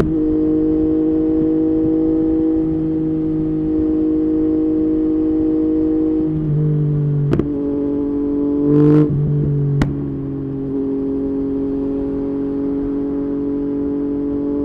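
Background music of sustained chords over a low note that comes and goes, changing chord about six and a half and ten seconds in. Two sharp clicks and a short swish fall near the middle.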